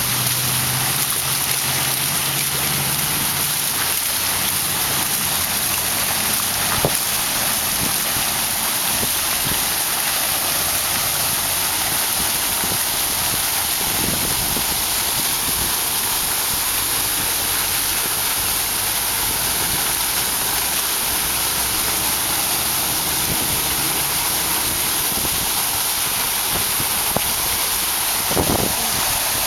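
Fountain jet spraying water up and splashing back down into a shallow pool: a steady rushing hiss of falling water, with a couple of brief knocks.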